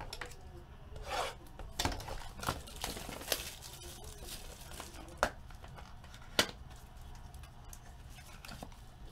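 Hands tearing open a shrink-wrapped Futera World Football trading-card box: plastic wrap and paper rustling and tearing, with a few sharp clicks, the two loudest about five and six and a half seconds in.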